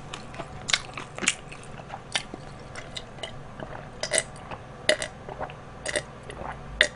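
Close-miked mouth sounds of eating fried chicken: wet chewing with sharp, irregular clicks and smacks. Later, gulps as a drink is swallowed from a glass.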